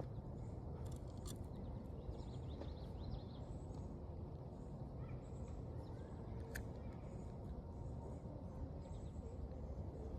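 Outdoor ambience at a fishing pond: a steady low rumble with faint, short, high-pitched chirps repeating through it and a single sharp tick about six and a half seconds in.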